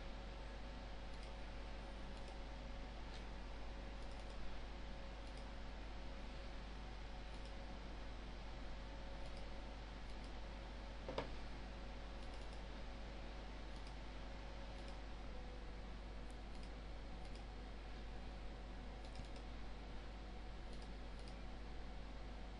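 Occasional computer mouse clicks over a steady low hiss and hum, with one sharper click about eleven seconds in.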